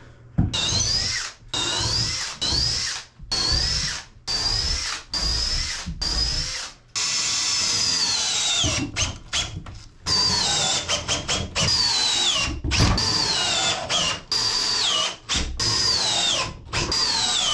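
Cordless drill run in a series of short trigger bursts, its motor whine sagging in pitch under load, then a string of quick stop-start pulses near the end. It is working lag-bolt fastenings through the stringer into the boat's frames, which the speaker calls much tougher going in the white oak.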